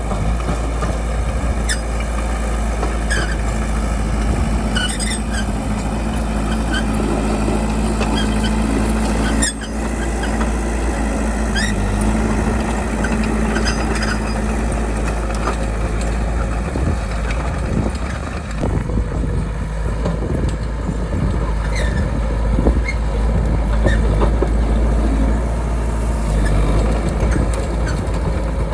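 Crawler bulldozer's diesel engine running steadily at work, with short squeaks from the steel tracks scattered throughout.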